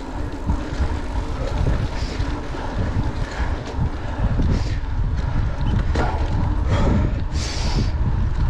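Wind buffeting the microphone of a rider-mounted camera while a mountain bike rolls fast along a forest road, with a steady low rumble of tyre noise and short rattles and clicks from the bike over bumps.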